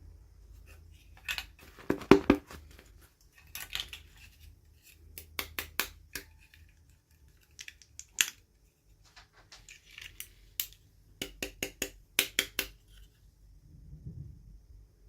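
Small plastic toy packaging being handled and opened by hand: a series of sharp clicks and snips, several in quick runs of three to five, with light rustling between.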